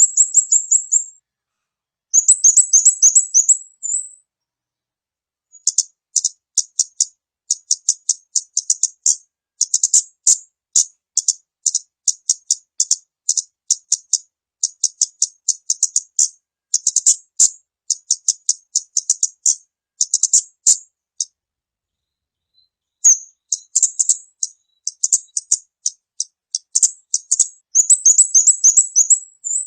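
Kamade bird calls played as a bird-lure recording: high, sharp chattering notes in quick clusters of three or four, repeated in long runs, with short descending trills at the start and near the end. The calls break off twice into dead silence, about four seconds in and again past twenty seconds.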